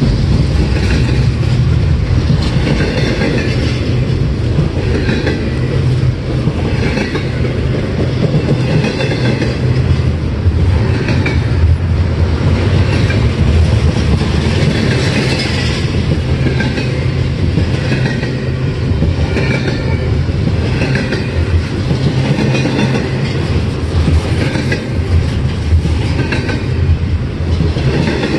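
Double-stack intermodal freight train's container well cars rolling past, a loud steady rumble with repeated clacks of the wheels over the rail joints, roughly one a second.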